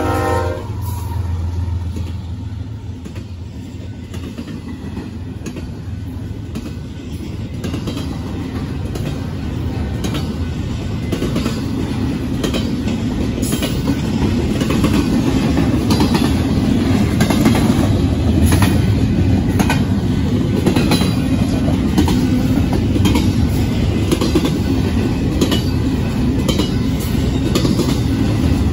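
A Union Pacific freight train passing close by. The locomotive's horn cuts off about half a second in, and the diesel locomotive rumbles past. Double-stack intermodal container cars follow, their wheels rumbling steadily with clickety-clack clicks over the rail joints, growing louder from about the middle on.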